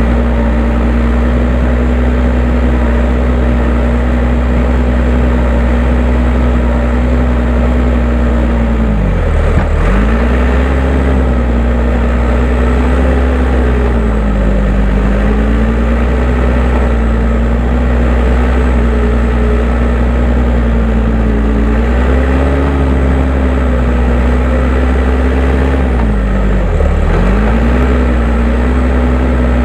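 Case 580M backhoe loader's diesel engine running steadily at working speed, its pitch sagging twice and dropping sharply twice, about a third of the way in and near the end, before recovering each time as the machine takes load scraping hard ground.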